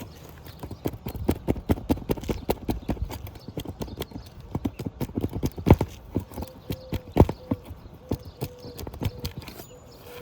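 Rapid, irregular knocking and tapping of hand tools working nails out of asphalt roof shingles, with two louder knocks a little past the middle.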